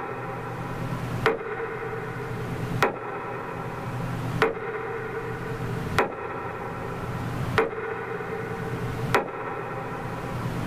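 Metronome beating out the minute of silence: a single sharp click about every second and a half, evenly spaced, over a steady low hum.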